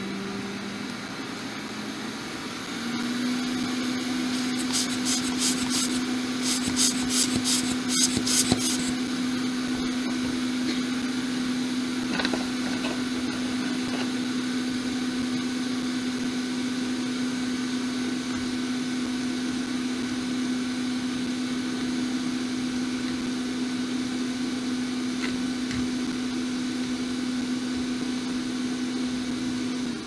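A small electric motor humming steadily at one pitch, stepping up slightly in pitch about two and a half seconds in. Between about four and nine seconds a rapid rhythmic scrubbing sound, several strokes a second, rides over the hum.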